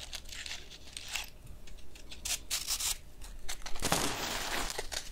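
Wooden match scraped several times against a matchbox's striking strip, catching about four seconds in with a hissing flare that lasts about a second.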